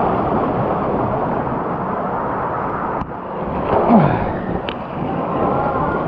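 Loud rushing water of a river cascade close to the microphone, a steady churning noise. It drops briefly about three seconds in, then swells again about a second later.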